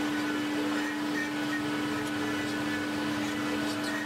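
Steady electric machine hum with one strong unchanging tone, from workshop machinery running while the CNC router's spindle stands still.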